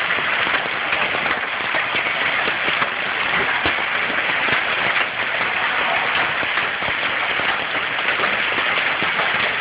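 Hail falling, a steady dense patter of many small sharp hits.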